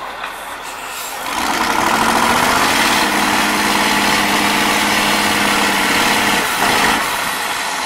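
Diesel engine of an eight-wheeled off-road trial truck pulling hard up a steep rocky climb. The revs build about a second in, hold steady under load, then ease off near the end.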